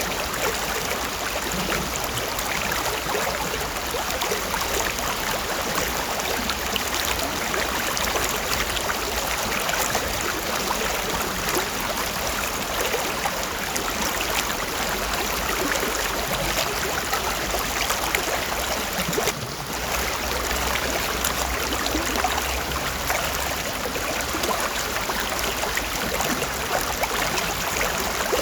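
Shallow stream water running steadily, a continuous babble of flowing water.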